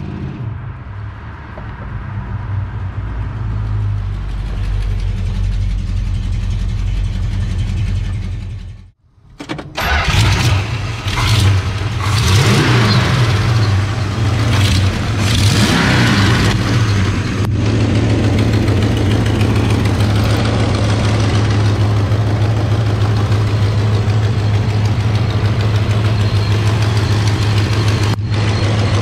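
1967 Dodge Coronet's 318 cubic-inch V8 running as the car drives, growing louder as it comes closer. After a short break the engine starts, is revved several times and then settles into a steady idle.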